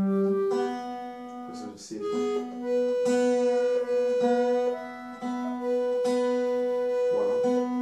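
Piano accordion and acoustic guitar playing an instrumental tune together, the accordion holding long melody notes that change pitch every second or so over plucked guitar.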